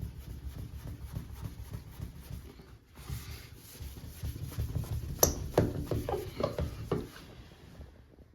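Rubbing compound being hand-rubbed back and forth over a resin-refinished fiberglass tub to cut down the tape line, a quick run of rubbing strokes. A few sharper scrapes come about five to seven seconds in.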